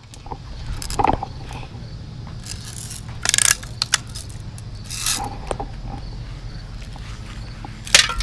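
Handling and movement noise: rustling and scraping as a BB gun is carried and feet brush through grass, with a few short, sharp clicks, the loudest near the end.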